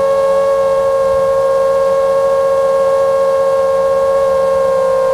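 Motor and propeller whine of a 5-inch FPV quadcopter: four T-Motor F60 Pro II 2207 2500Kv brushless motors spinning three-blade T5143S props at a steady cruise throttle. The whine is one held, loud tone with overtones.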